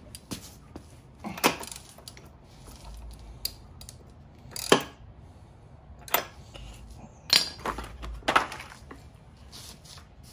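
Spark plug socket and wrench clinking against the spark plug and engine as the plug is fitted into a Briggs & Stratton mower engine's head: about six separate sharp metallic clicks, the loudest around the middle.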